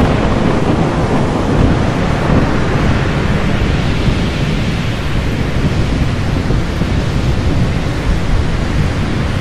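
Thunderstorm sound effect: a loud, steady deep rumble under a rain-like hiss.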